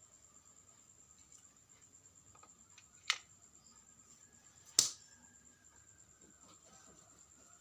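Two sharp clicks about a second and a half apart, the second louder, over a faint steady high-pitched whine.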